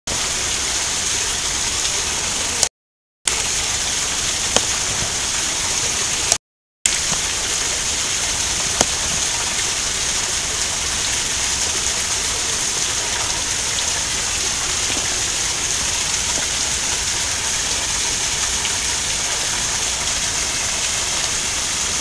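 Garden waterfall splashing onto rocks: a steady, even rushing hiss of falling water. The audio cuts out to silence twice, briefly, about three and six and a half seconds in.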